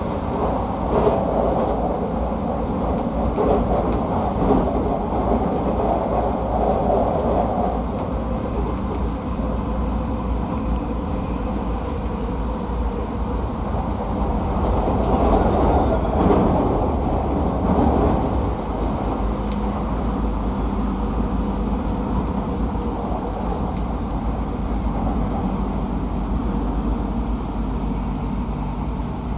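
Running sound inside a JR East 209-series electric train's motor car (MoHa 209-1004): a continuous rumble of wheels on rail and traction equipment. It swells louder in the first several seconds and again about halfway through.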